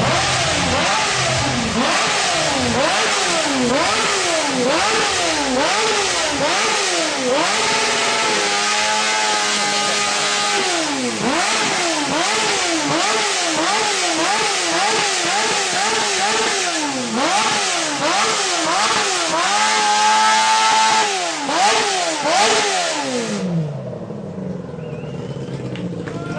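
High-revving motorcycle engine blipped hard over and over, its pitch shooting up and dropping back more than once a second, and twice held near the top for a second or two. The revving stops abruptly near the end.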